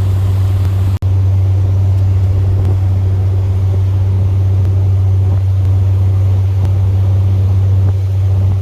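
Boat engine running steadily with a low, even drone, briefly cutting out about a second in.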